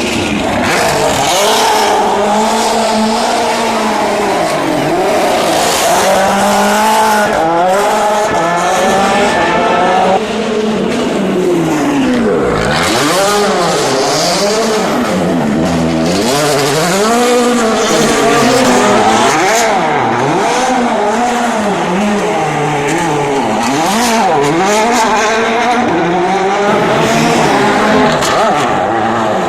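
Rally car engines revving hard, the pitch climbing and dropping again and again as the cars accelerate and shift.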